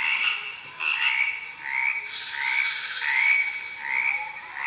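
A chorus of tree frogs croaking, short chirpy calls repeating about twice a second and overlapping, played as a recording from a children's sound book.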